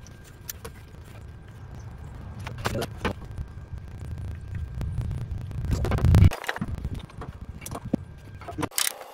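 Power steering line fittings being threaded by hand onto a steering box: scattered short metal clicks and scrapes over a low rumble, which swells and then cuts off suddenly twice.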